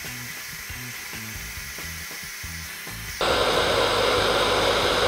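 Background music with a low, stepping bass line, then about three seconds in a hair dryer blows loudly and steadily close by, heating the figure's soft plastic helmet to reshape it.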